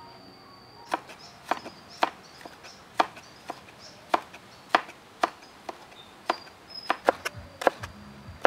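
Cleaver slicing a red bell pepper into strips on a plastic cutting board: sharp knocks of the blade on the board, about two a second and unevenly spaced, starting about a second in.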